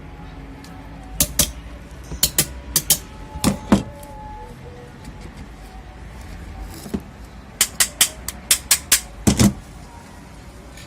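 Sharp clicks and knocks of metal parts and tools being handled during reassembly of a stand fan motor, in two quick clusters, over background music.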